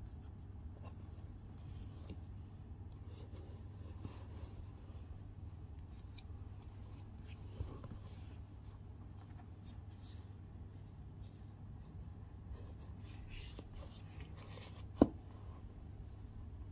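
Hands handling a Xerjoff perfume presentation box, with faint rubbing and scraping of the covered board and small ticks. One sharp click or snap comes about fifteen seconds in, over a low steady hum.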